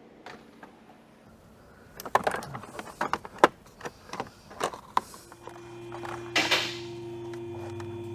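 A run of sharp clicks and knocks of plastic trim and tools being handled while a car dashboard is taken apart. About five seconds in, a steady hum with a few held tones starts and continues.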